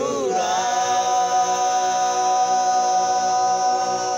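A group of men singing a cappella, sliding briefly in pitch and then holding one long, steady closing chord together.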